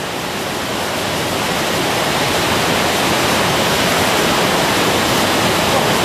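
Waterfall rushing close to the microphone: a steady rush of falling water that slowly grows louder.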